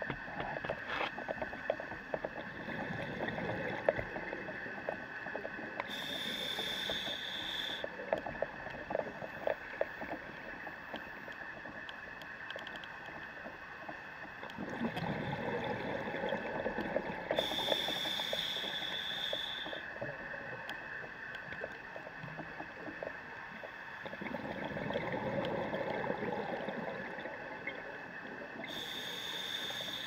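A scuba diver's breathing heard underwater. Exhaled bubbles come in swells lasting a few seconds, each followed by a short hissing inhale through the regulator, about three breaths. There are scattered clicks in the first ten seconds and a faint steady tone throughout.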